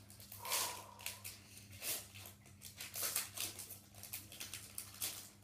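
Foil wrapper of a Pokémon trading card booster pack being torn open and crinkled by hand, in irregular crackling rips and rustles.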